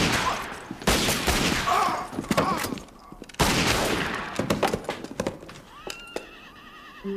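Revolver gunfire in a close-range shootout: several sharp shots, the loudest at the start, about a second in and about three and a half seconds in. A horse whinnies in between, about two seconds in.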